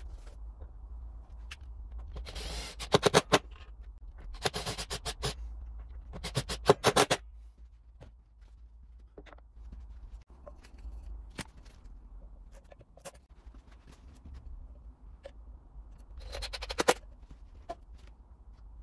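Screws being driven into a wooden tool holder on the workshop wall board. There are three short bursts of rapid clicking a couple of seconds apart, each about a second long, and a fourth burst near the end over a low steady hum.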